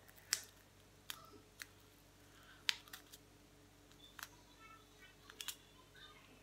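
Scattered small sharp clicks and crinkles of fingers and nails picking at a small foil packet, about eight separate ticks spread over several seconds, the sharpest near the start and about a third of the way in.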